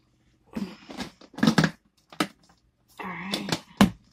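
Close handling noises: a few bursts of rustling and crinkling with sharp knocks, the loudest knock near the end, as hands move eggs and equipment near the microphone.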